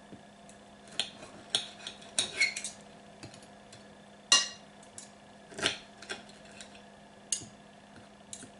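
Metal knife and fork cutting food on a china plate: scattered clinks and scrapes of cutlery against the plate, the sharpest about four seconds in, over a faint steady hum.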